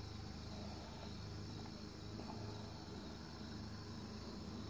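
Faint, steady chirping of crickets.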